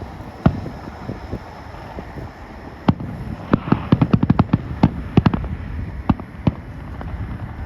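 Fireworks going off: scattered sharp bangs, with a quick run of rapid pops in the middle.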